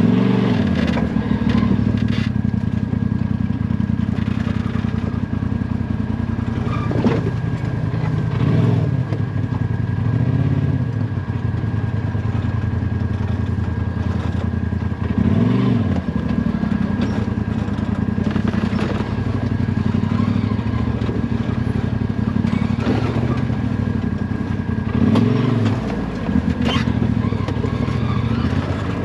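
Side-by-side UTV engine running under way, revving up and easing back off several times, with occasional sharp knocks and clatter.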